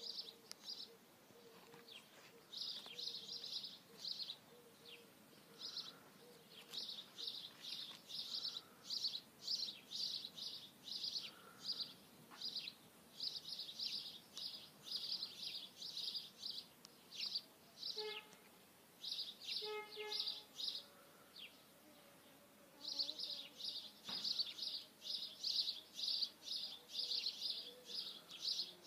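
Small bird chirping over and over: short high chirps about three a second, in runs broken by brief pauses. Two short, lower pitched calls come about two-thirds of the way through.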